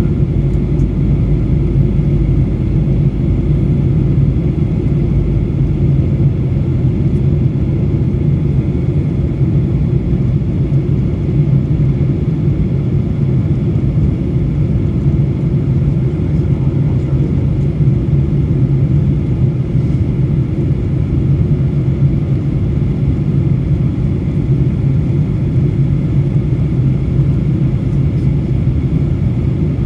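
Steady low drone inside a Boeing 737 airliner's cabin in flight, engines and airflow running unchanged with no distinct events.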